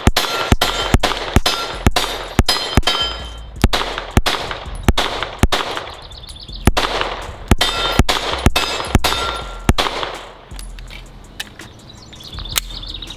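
Springfield Echelon 4.0C 9mm pistol fired in a steady string of about twenty shots, roughly two a second, each followed by the ring of steel targets being hit. The shots stop about ten seconds in, with one more shot near the end.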